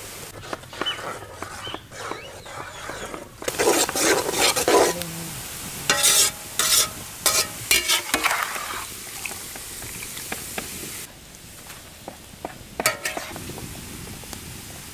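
Sliced onions deep-frying in oil in a large metal wok, sizzling steadily, while a perforated metal skimmer scrapes and stirs against the pan in clusters of strokes, loudest from about three and a half to eight seconds in. The sizzle drops quieter after about eleven seconds, with a few more scrapes near the end.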